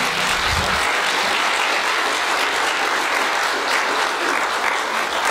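Church congregation applauding steadily as a sung special ends.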